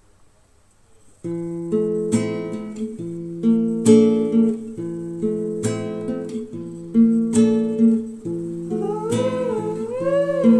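Background music: acoustic guitar chords plucked and strummed, starting suddenly about a second in after near silence, with a gliding vocal line coming in near the end.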